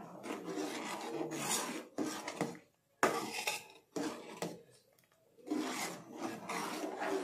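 A steel spoon scraping and stirring along the bottom of a steel pan of thick, cooking milk-and-flour mixture, in uneven rasping strokes with two short pauses. The stirring keeps the thickening base from catching on the bottom.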